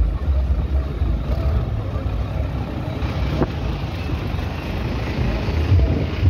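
Minivan engine running as the van drives slowly forward, over a steady low rumble of road traffic.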